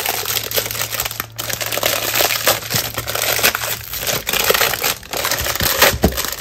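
Stack of square paper envelopes being handled and shuffled: continuous rustling and crinkling with many small sharp ticks.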